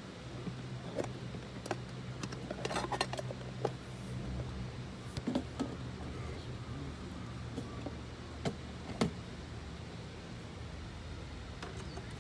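Camp cookware and utensils being handled: scattered clinks and knocks, a quick cluster about three seconds in and single knocks later, over a steady low hum.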